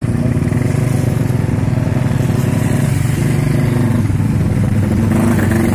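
Motorcycle engine running at a steady speed, heard from on the moving bike, under a continuous rush of wind and road noise.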